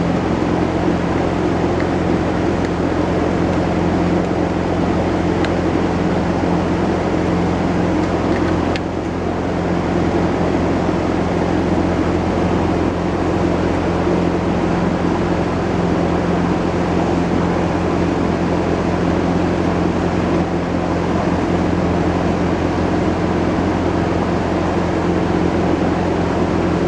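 A steady mechanical drone with several fixed low hum tones, like a motor or engine running without change, dipping slightly about nine seconds in.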